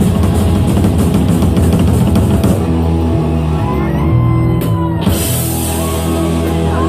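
Loud rock music with a drum kit. The busy drumming drops out about two and a half seconds in, leaving held notes, and a cymbal-like crash comes in about five seconds in.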